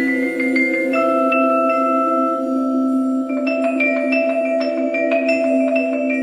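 Mallet percussion music: vibraphone notes ringing and overlapping over a steady low drone, with a quicker run of struck notes starting about halfway through.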